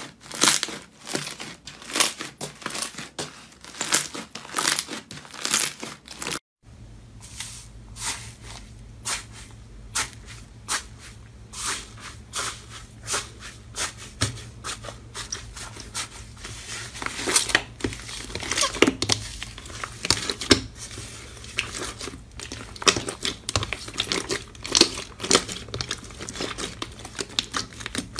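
Slime being squeezed and kneaded by hand, a dense stream of sticky pops, clicks and crackles. After a brief dropout about six seconds in, a low steady hum runs under the popping.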